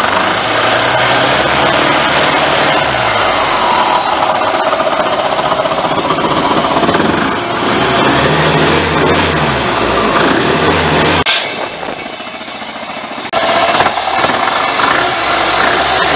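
Small single-cylinder gasoline engine running and revving up and down several times as the throttle is worked, driving a jet pump through a chain and sprockets. The sound drops sharply for about two seconds past the middle, then comes back.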